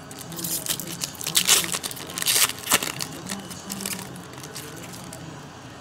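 Foil wrapper of a 2011 Topps Platinum football card pack being torn open and crinkled by hand: a run of sharp crackling rips over about three seconds, then quieter handling.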